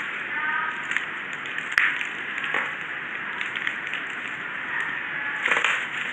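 Gloved fingers crumbling and crushing dry clay lumps on paper: a steady gritty crackle with scattered sharper cracks, and a louder flurry of crunching near the end.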